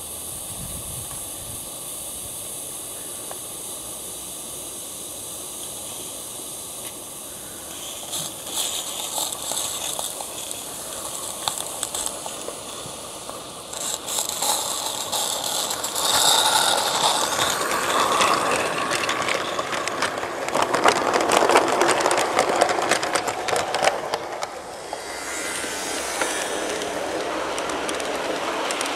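G scale live-steam locomotive and its wagons running on garden track: a steady hiss at first, then a rapid clicking and rattling that grows louder as the train comes close, loudest from about sixteen seconds in. Near the end it gives way to a steadier rolling rumble of freight cars passing close by.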